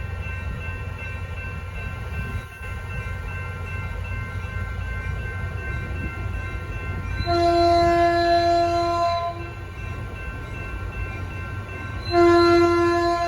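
Caltrain train horn sounding two long chord blasts as the train nears a grade crossing: the first about seven seconds in, lasting about two seconds, and the second near the end. Under it, a low rumble and a steady ringing that fit the crossing's warning bells.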